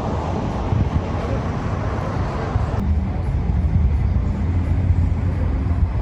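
Steady low vehicle rumble with a faint hum partway through.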